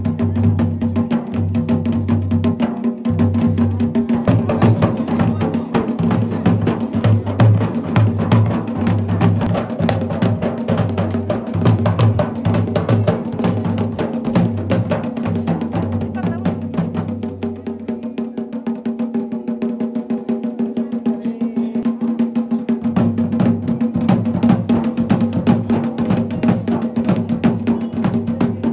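Music with drums: a steady held tone over a regular low drum beat. The low beat drops out for about five seconds past the middle, then returns.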